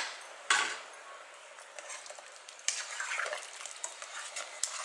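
A ladle stirring soup in a pot, scraping and splashing in the liquid, with a single sharp knock about half a second in.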